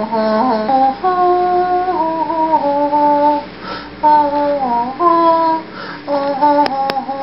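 A voice singing a slow, wordless-sounding melody of held notes that step up and down in pitch. A couple of sharp clicks come near the end.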